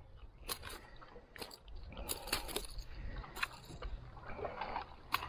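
Sea water slapping and sloshing against the hull of a paddleboard, with about six short sharp splashes and knocks spread through, over a low steady rumble.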